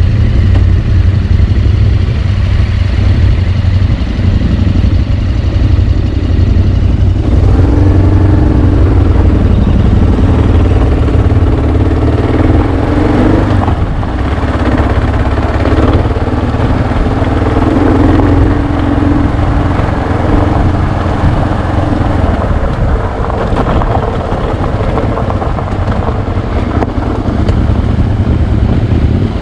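Motorcycle engine running while riding, under a heavy low rumble; from about seven seconds in, its pitch rises and falls as the throttle changes.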